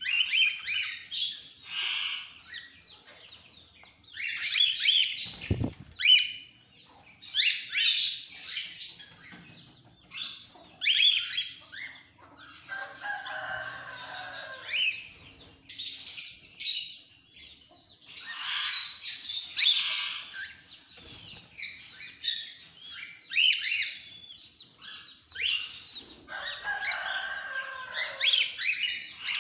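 A flock of cockatiels calling: many shrill chirps and harsher squawks overlapping in quick succession. One low thump comes about five and a half seconds in.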